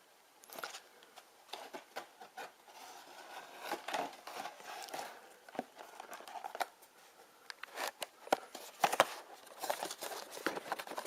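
Cardboard and plastic blind-box packaging being handled and opened by hand: irregular crinkling, scraping and small clicks that start about half a second in and grow busier near the end.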